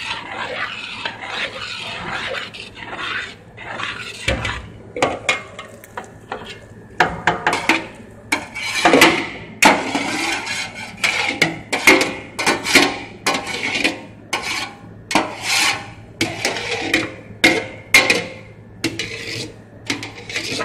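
Fried eggplant cubes being scraped out of a perforated metal colander into a pot of tomato sauce. Metal scrapes and clinks come in repeated strokes, more than one a second in the second half.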